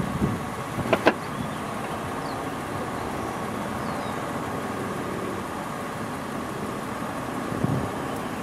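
Steady motor vehicle engine noise, with two sharp clicks about a second in.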